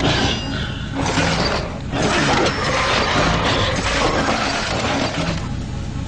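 Machine-like ratcheting and clattering sound effects in a dense run, breaking off briefly about one and two seconds in and thinning near the end.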